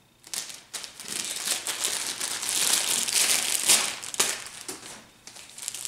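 Clear plastic bag crinkling as it is pulled off a plush doll's foot: a dense run of crackles that starts a moment in, is loudest in the middle and eases off near the end.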